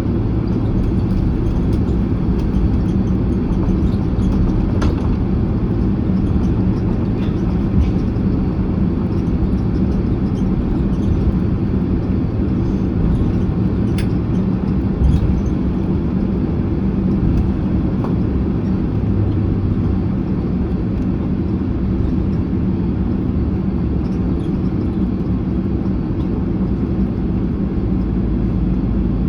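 Cabin noise inside a Boeing 767-300ER taxiing after landing: a steady low rumble of the engines at idle and the air conditioning, with a constant low hum. A couple of faint clicks about five and fourteen seconds in.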